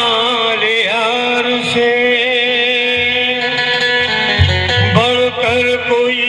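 Qawwali-style music: a harmonium holding a steady chord, a voice singing a wavering, ornamented line over it, and a few low drum strokes.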